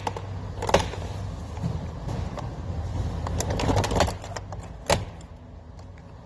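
A series of sharp clicks and knocks as a truck's door trim panel is pried off with a plastic pry tool and its clips let go. There is a single click a little under a second in, a quick cluster of clicks in the middle, and one loud knock near the end.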